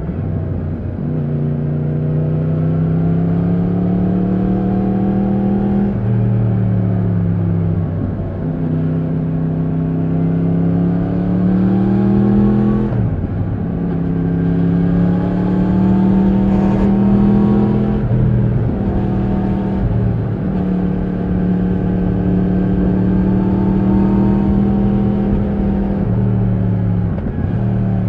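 2020 Yamaha MT-10's crossplane inline-four engine under way, pulling under throttle: the note climbs steadily for a few seconds, then drops sharply and climbs again, several times over.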